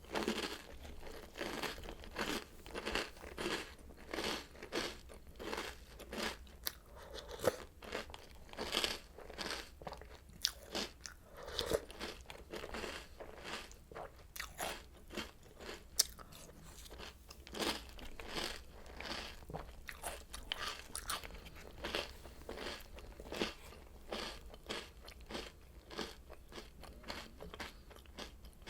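Oreo O's cereal being chewed: a steady run of crisp crunches and bites, about two a second.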